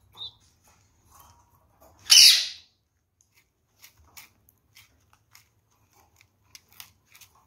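Red-fronted kakariki giving one loud, harsh squawk about two seconds in, with a short faint chirp near the start. In the second half come scattered small clicks of beaks pecking and cracking seeds in the feeding tray.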